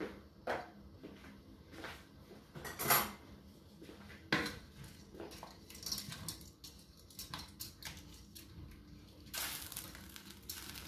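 Wooden spoon knocking and scraping against a stainless steel pot as spaghetti is stirred into the water: scattered clicks and taps, the loudest knocks about three and four and a half seconds in, with a short hiss near the end.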